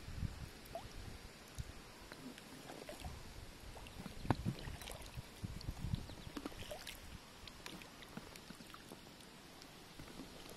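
Faint water splashing and lapping around a kayak's hull, with scattered light knocks and clicks, uneven and a little busier in the middle.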